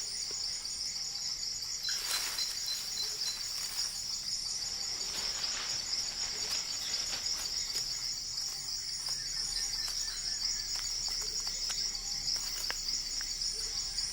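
Amazon rainforest insects keeping up a steady, high-pitched droning chorus, with a fast pulsing trill running beneath it at times.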